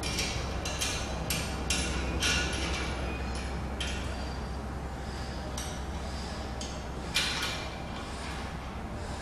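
Small metal clinks and taps of steel bolts, half nuts and washers being fitted by hand onto a steel frame. There are several quick clinks in the first few seconds and a sharper pair about seven seconds in, over a low steady hum.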